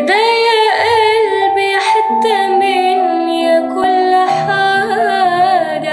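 A woman singing a slow Arabic ballad in one long phrase without clear words, her voice bending and wavering through held notes.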